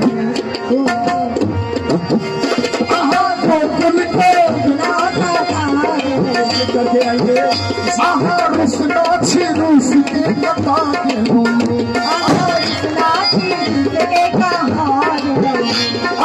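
Tabla played briskly by two players together in an instrumental interlude: rapid ringing strokes over a pulsing bass drum, with a harmonium holding sustained notes beneath.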